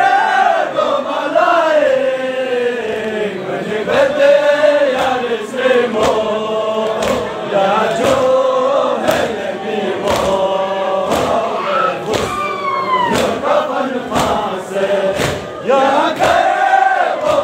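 Men chanting a Balti noha, a Shia lament, in unison, with sharp hand strikes keeping time about once a second, typical of matam chest-beating.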